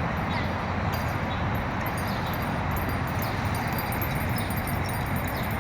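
Steady city traffic noise, with small birds in the trees giving short, falling chirps now and then.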